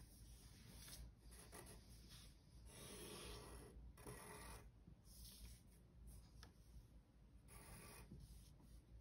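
Faint scratching of a pencil drawing on paper, a series of separate long strokes with short pauses between them.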